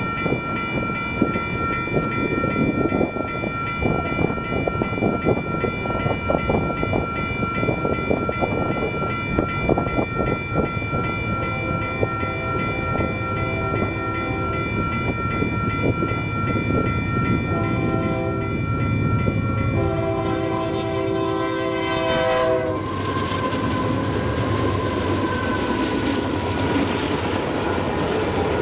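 Union Pacific freight locomotive's air horn sounding a long chord as the train approaches, the pitch dropping as the lead units pass about 22 seconds in. The locomotives then rumble past, followed by empty autorack cars rolling by with wheel clatter on the rails.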